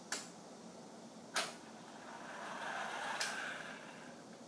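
Two sharp clicks, then a small RC car's electric drive motors and gears whirring for about two seconds as the car drives, swelling and fading, with another click in the middle of it.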